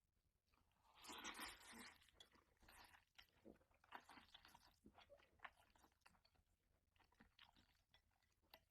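Faint close-up chewing of noodles: a longer noisy burst about a second in, then a run of small clicks and crunches.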